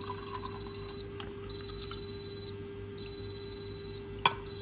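Autumnz baby food processor's electronic alarm beeping, a high steady tone about a second long repeating every second and a half: its error warning for lack of water (E1). A single click comes about four seconds in.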